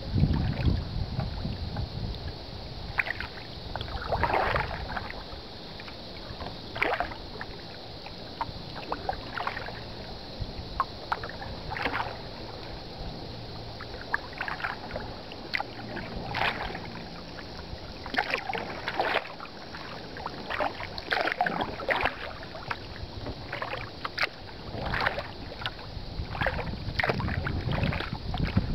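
Kayak paddle strokes in calm river water: the blade dips and splashes every one to three seconds.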